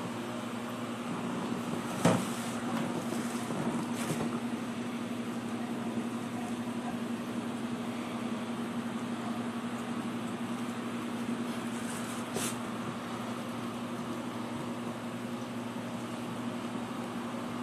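Steady machine hum, such as a fan or air conditioner running, with one sharp click about two seconds in and a few fainter clicks later.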